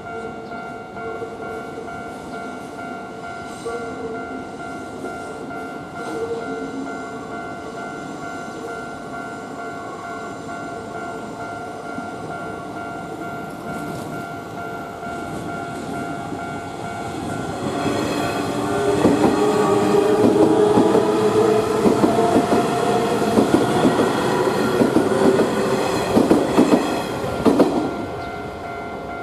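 Japanese level-crossing warning bell ringing its steady electronic "kan-kan" alarm. From about 18 seconds in, an electric train passes close by for about ten seconds with a falling whine and rapid wheel clatter, then the bell is left ringing alone.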